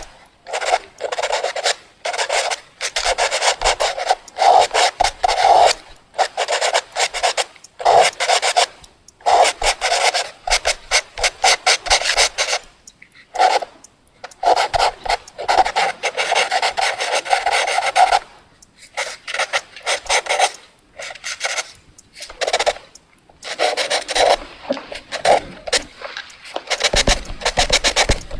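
Fast drawing on paper: quick scratchy strokes of a drawing tool, in bursts of a second or two with short pauses between.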